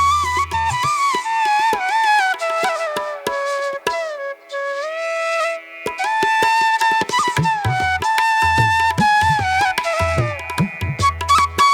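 Background music: a flute-like melody with sliding, ornamented notes over hand-drum strokes in an Indian classical style. The low drum hits drop out for a few seconds in the middle, leaving the melody, then return.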